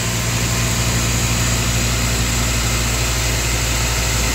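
Alternator test bench spinning a dual-internal-fan 180-amp high-output alternator under heavy electrical load during a peak-output test: a steady machine hum with fainter steady tones above it.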